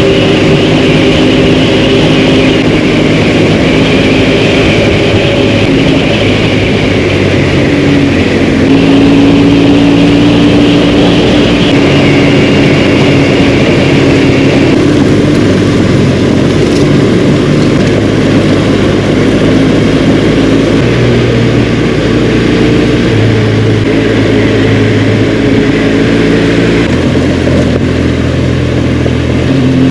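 Dual-sport motorcycle engine running under way at a steady road speed, its pitch shifting in steps several times, with wind noise over the microphone.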